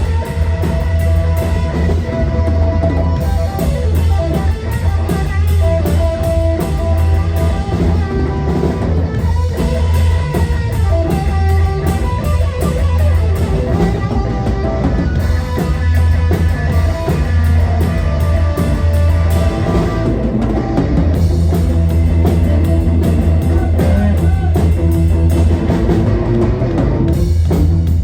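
Live rock band playing an instrumental stretch of a song with electric guitar, bass guitar and drum kit, and no singing.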